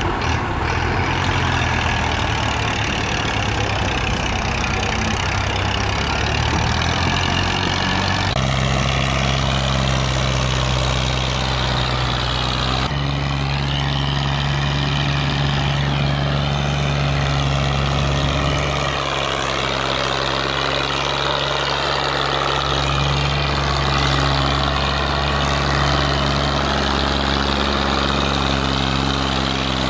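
Massey Ferguson 260 tractor's three-cylinder diesel engine running steadily under load while hauling a trolley loaded with soil. The engine note changes abruptly twice, at shot changes.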